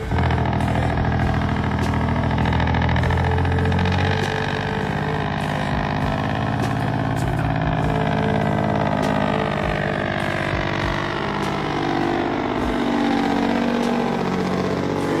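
Truck engine running, its pitch rising and falling slowly several times, heaviest low rumble in the first few seconds.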